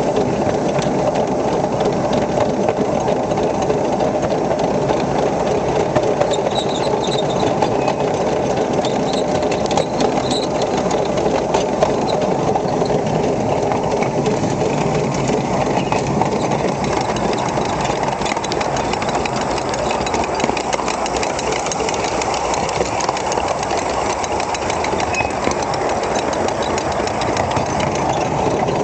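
Miniature steam locomotive running along the track: a rapid, steady mechanical rhythm of exhaust chuffs and wheels on the rails.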